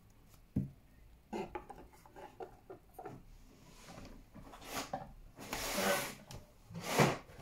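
Pokémon trading cards being gathered up by hand: soft clicks and paper rubbing, with a few louder swishes in the second half.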